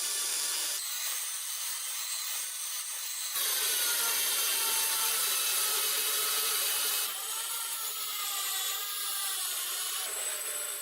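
High-speed rotary tool with a tungsten carbide burr grinding into steel: a steady hiss over a faint whine that wavers in pitch. The sound changes abruptly several times.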